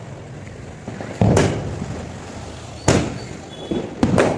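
Firecrackers bursting: four sharp bangs, one about a second in, one near three seconds and two close together near the end, each trailing off in a low rumble.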